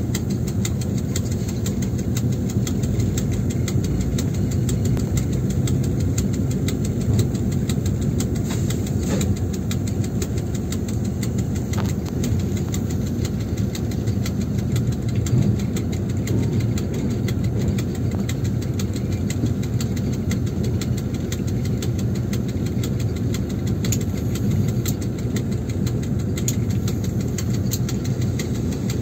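Cab sound of a 2M62U diesel locomotive: its two-stroke V12 diesel engine running steadily at low power while the locomotive rolls slowly, with scattered light clicks and rattles over it.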